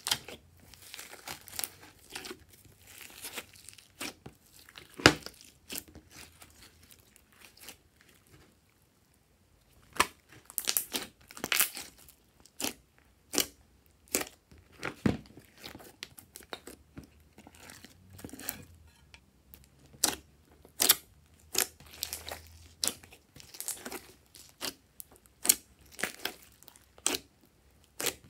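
Hands squeezing, stretching and folding a big mass of glossy slime, making irregular sticky crackles and sharp pops. There are loud pops about five and fifteen seconds in, and a brief pause between about eight and ten seconds.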